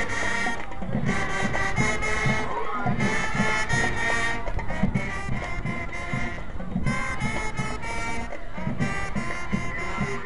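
Marching band playing: sustained wind-instrument chords over a steady, regular drum beat.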